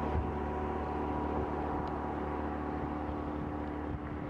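A steady mechanical hum holding several even tones over a low rumble.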